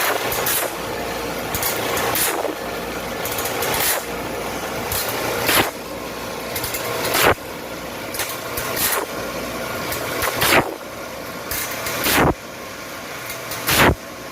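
Band saw blade sharpening machine running, its grinding wheel working the blade in a regular cycle. The noise builds and then breaks off with a sharp stroke about every 1.7 seconds, once per tooth.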